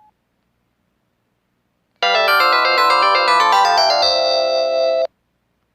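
A mobile phone playing a short polyphonic ringtone-style melody through its small speaker: about three seconds of quick stepping notes that settle into a held chord, then cut off abruptly.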